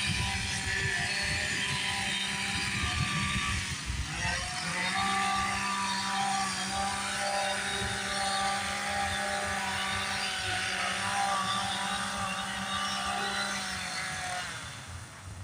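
Small petrol engine, likely a leaf blower, running steadily with a rushing air noise; its pitch drops and climbs back about four seconds in, and it fades out near the end.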